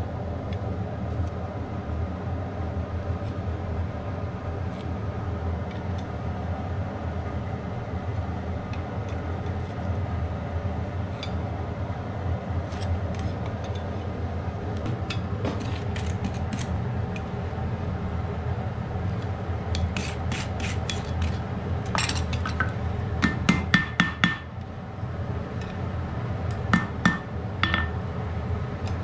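Blacksmith's hand hammer striking a red-hot iron crampon blank on an anvil, with scattered light clinks of tongs on metal at first, then short groups of sharp ringing blows in the second half. A steady hum runs underneath.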